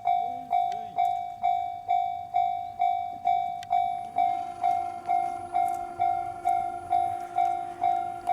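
Japanese railway level-crossing warning bell ringing, an evenly repeated electronic 'kan-kan' strike about twice a second. About four seconds in, a steady lower tone joins it.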